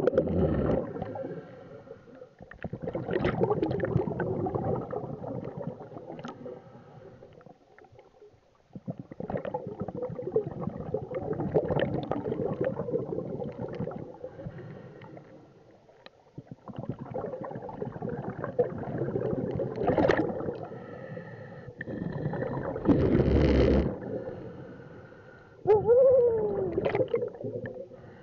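Diver breathing through a scuba regulator underwater: rounds of gurgling exhaled bubbles, each a few seconds long, with quieter gaps between breaths. A short falling tone sounds near the end.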